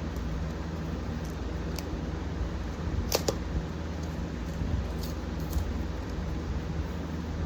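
Steady hum of a room fan and air conditioner, with scattered sharp clicks and taps from a blind-box package being handled and pried open; the loudest is a pair of clicks about three seconds in.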